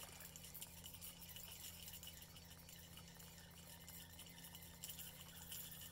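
Near silence: a faint steady low hum with light, scattered ticking.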